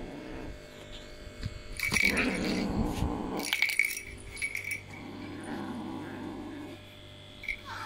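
Orange kitten growling low in its throat over a feather wand toy held in its mouth, an angry growl at whoever comes near its prize. There are two bouts, one about two seconds in and a softer one about five seconds in.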